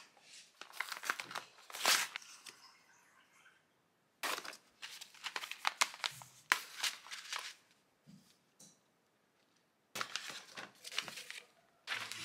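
A padded paper mailer is torn open and a paper coffee bag is handled, giving three spells of tearing and crinkling paper with short quiet gaps between them.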